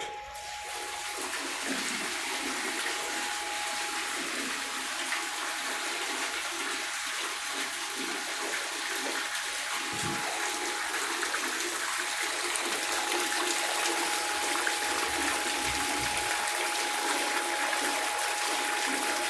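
Water draining out of an industrial Milnor washer-extractor through a temporary hose: a steady rush that starts just as the drain opens and grows slightly louder toward the end. A thin steady tone runs underneath it.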